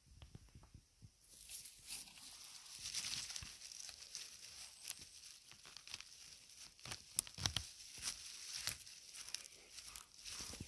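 A hand rustling through grass, moss and dry needle litter and working a porcini mushroom loose from the forest floor: close crackling and tearing noise that starts about a second in, with sharp clicks and snaps of debris scattered through it.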